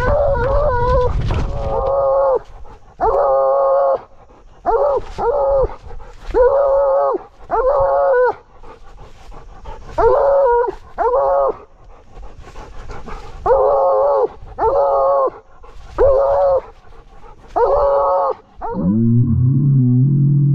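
A blood-trailing hound baying a cornered whitetail buck: about a dozen loud, pitched bay barks, half a second to a second each, in uneven bursts. Near the end a deeper, drawn-out call of about two seconds follows.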